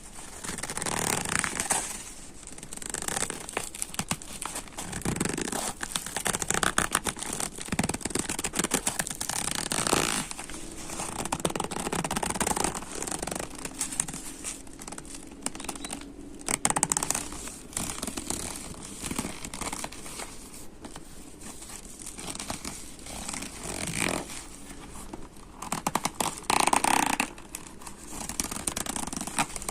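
Genuine leather creaking and crinkling as it is flexed and squeezed, in uneven bouts of crackly creaks, with a louder, more pitched creak near the end.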